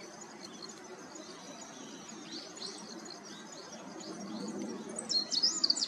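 Meadow bunting singing: a quick, loud run of high, varied notes near the end, after fainter scattered chirps, over a steady low background hum.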